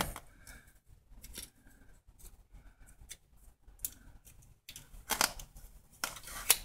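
Scattered light clicks and rustles of a wooden snap mouse trap being handled and reset, its metal spring bar and trigger clicking. Sharper clicks come near the end as the trap is set down on the concrete floor.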